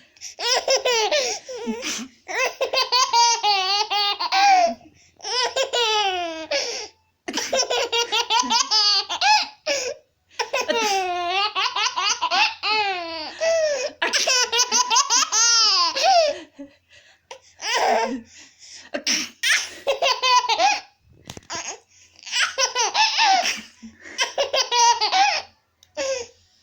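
Baby laughing in repeated high-pitched fits, each a second or several long, broken by short pauses.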